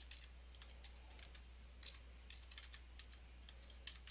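Faint computer keyboard typing: scattered key clicks at an uneven pace, over a steady low hum.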